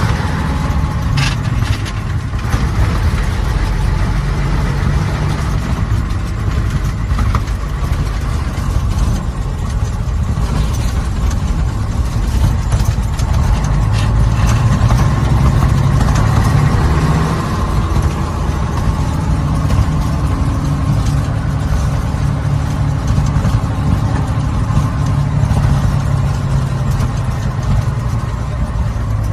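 1951 Mack LFT truck's engine running as the truck is driven, a steady low engine sound that grows louder for a few seconds around the middle and then eases back.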